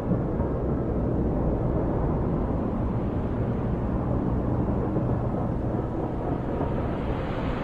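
Steady low rumble of urban street ambience at night, with a faint steady hum underneath.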